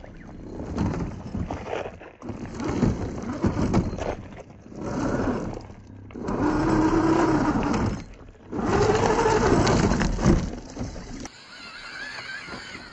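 Radio-controlled rock crawler truck's electric motor and drivetrain whining in throttle bursts, the pitch rising and falling within each burst, while its tyres grind and crunch over loose rocks. Near the end the sound drops away to a quieter background.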